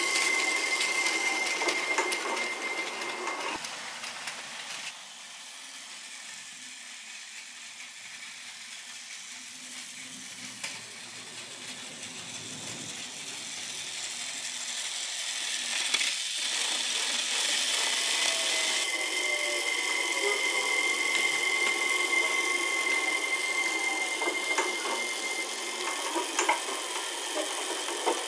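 Battery-powered Plarail toy trains running on plastic track: a steady whir of small electric motors and gears with a thin whine over it. It falls away sharply about five seconds in and grows louder again from about halfway as a train comes closer.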